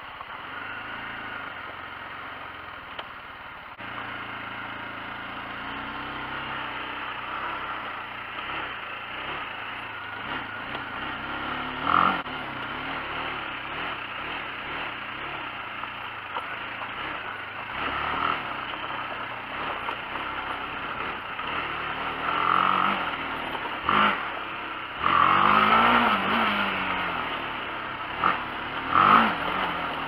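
Adventure motorcycle engine running on a gravel trail, rising and falling in pitch as the throttle opens and closes, with wind noise on the microphone. Several short, louder blasts come through, the biggest about three-quarters of the way in.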